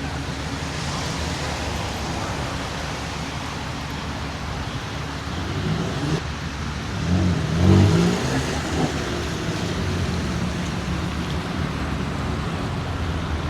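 Car engine running at low speed as a car rolls by, swelling and peaking about two-thirds of the way through, over a steady background rumble.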